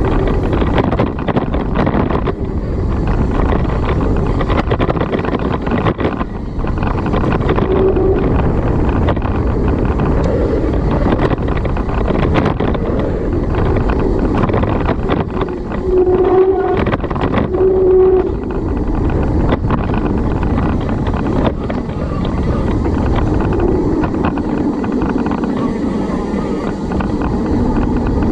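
Wind buffeting the microphone over the rumble and rattle of a mountain bike riding fast down a dirt trail. There are short low tones about eight seconds in and twice more around sixteen to eighteen seconds.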